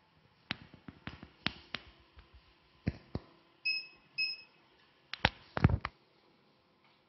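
Two short electronic beeps from the BM-188 slimming machine's touchscreen as it is pressed, set among handling clicks and knocks; the loudest clunks come near the end as handpieces are taken from and set into the machine's holder.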